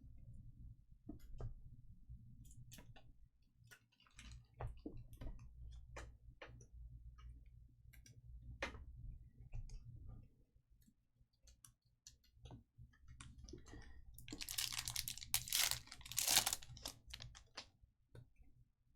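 Trading cards and foil pack wrappers being handled: scattered light clicks and card slides, then a louder stretch of crinkling and rustling about fourteen seconds in.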